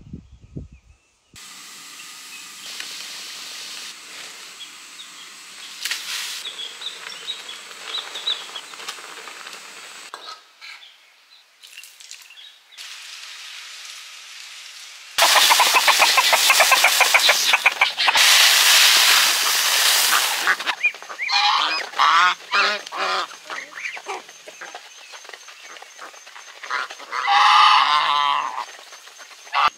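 Domestic geese honking, with a run of loud calls in the last few seconds. Before that, in the middle, a loud steady rushing hiss lasts about six seconds and then cuts off.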